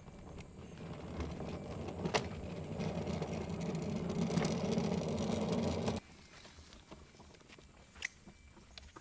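Erayak 4500PD inverter generator's engine running steadily, building up over the first few seconds, then cutting off suddenly about six seconds in.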